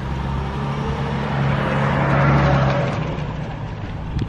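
A road vehicle going past: a steady engine hum with a rushing noise that swells a little after two seconds in and then fades, the hum dropping away soon after.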